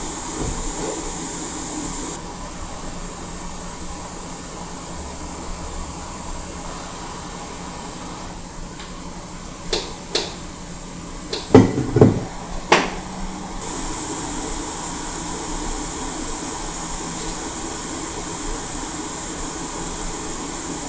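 Hot air rework station blowing with a steady hiss while desoldering a burned component from a laptop logic board. A few sharp clicks come about halfway through, followed by three louder knocks.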